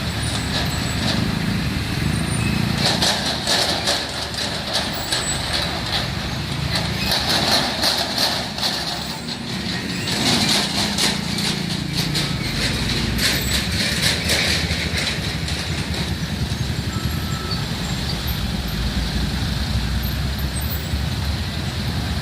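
Road traffic with truck and other vehicle engines running and passing, louder and noisier in stretches through the middle.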